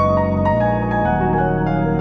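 Background music on keyboard: held chords over a bass note that changes twice.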